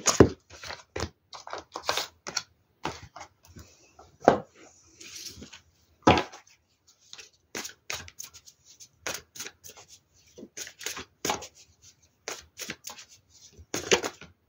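A deck of oracle cards being shuffled by hand: an irregular run of short card snaps and slaps, with a few louder slaps scattered through.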